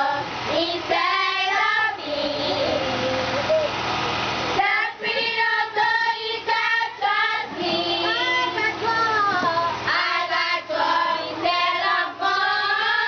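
A group of schoolchildren singing together. The singing thins out about two seconds in, then the full group comes back in about four and a half seconds in.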